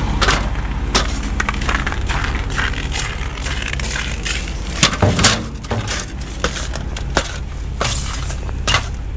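An aluminium ladder knocking and clattering as it is carried, set against a truck trailer and climbed, with boots scuffing and crunching on icy ground. A steady low rumble runs underneath.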